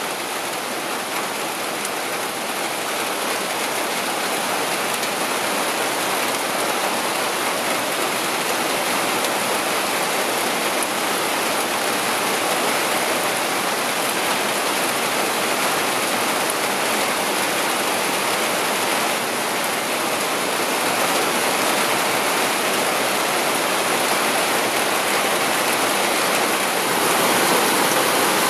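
Intense summer downpour: heavy rain falling on the forest canopy, a steady dense hiss that slowly grows louder.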